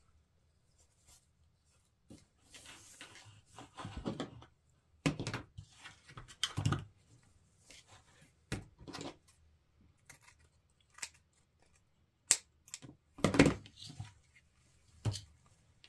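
Wired fabric ribbon rustling and crinkling in short bursts as it is pulled off the spool, twisted and folded into loops, with a few sharp clicks and snaps, the loudest near the end.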